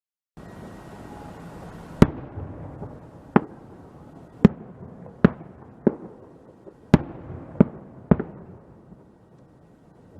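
Single-bang firecrackers ('one sound' crackers) going off one after another: eight sharp bangs at uneven gaps of about half a second to a second and a half, over a steady background hiss.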